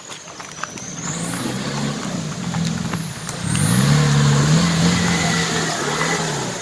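Off-road 4x4's engine revving up and down as it works through the course, growing louder about three and a half seconds in.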